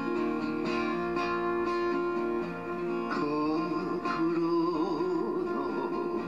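Acoustic guitar playing a slow song with sustained notes; about three seconds in, a man's singing voice joins at the microphone.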